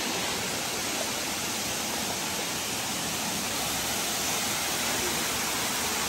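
Waterfall rushing steadily into its pool: an even hiss of falling water with no breaks.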